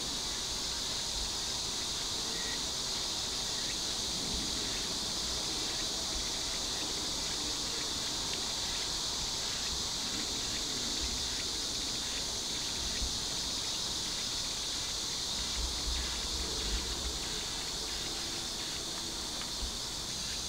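Steady, high-pitched chorus of insects going on without a break, with a few brief low rumbles about three-quarters of the way through.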